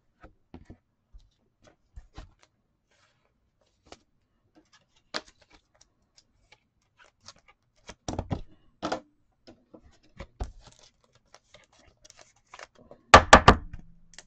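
Scattered light clicks and taps of trading cards being handled and set down on a tabletop, with a louder cluster of sharp knocks about a second before the end.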